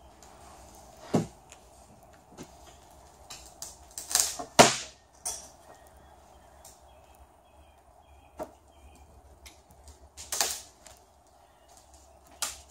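Sharp cracks and knocks, scattered a few seconds apart with the loudest a quick pair about four to five seconds in, as a fibreglass mould is prised off its waxed plug with a lever bar.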